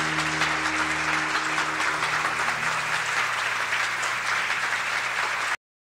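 Theatre audience applauding while the song's last held chord dies away beneath it; the clapping cuts off abruptly near the end.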